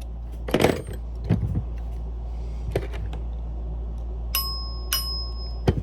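Tools and metal parts of a Simplex 2902-9207 chime being handled during reassembly: several sharp knocks and clicks over a steady low hum. Near the end, metal rings twice, about half a second apart, each ring brief and cut short.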